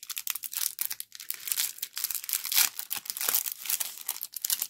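Clear plastic cellophane sleeve around a makeup brush crinkling continuously as fingers work at it to get it open, a dense, irregular rustle.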